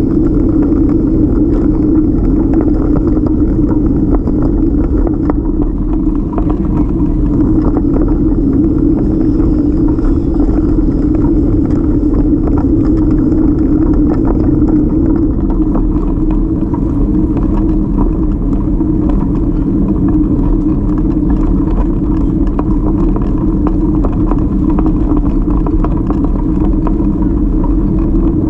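Steady rumble of a folding bike riding over paving stones, picked up through a bike-mounted camera, with small rattles throughout.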